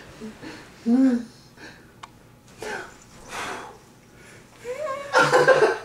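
A baby's breathy giggles and short vocal sounds, broken by pauses, with a louder adult voice or laugh near the end.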